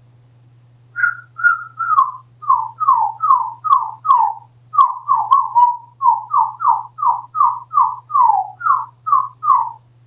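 African grey parrot whistling a long run of short, falling notes, about two a second, starting about a second in.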